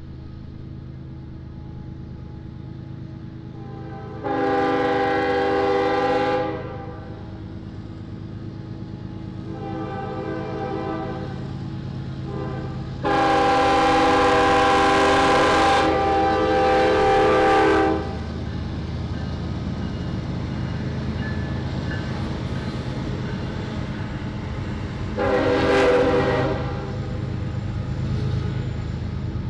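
Diesel locomotive horn blowing a series of blasts over the low rumble of the locomotive's engine. The blasts run as a two-second blast, a fainter one of similar length, a loud one held for about five seconds, and a short blast near the end.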